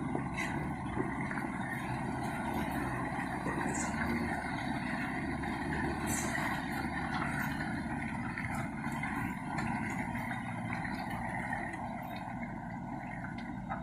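A 4x4 pickup truck's engine running steadily under way off-road, with a few brief clicks and knocks.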